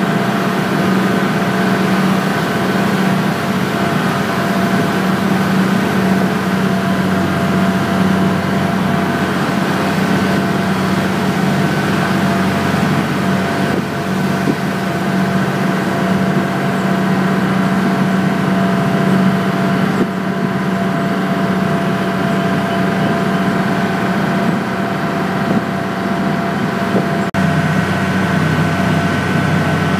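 Ferry boat's engine running steadily while under way, a constant droning hum.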